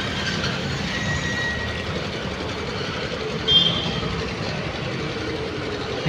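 Steady street traffic noise from passing vehicles, with a short high beep about three and a half seconds in.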